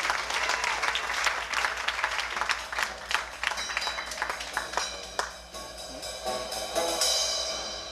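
Audience applause and cheering that thins out over the first few seconds, as an acoustic trio of banjo, acoustic guitar and snare drum starts playing; the instruments grow stronger near the end.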